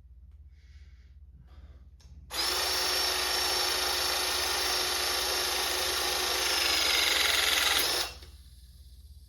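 Battery-powered 12-ton hydraulic lug crimper's electric pump motor running for about six seconds with a steady whine. Near the end the whine drops a little in pitch and gets louder, then it cuts off suddenly.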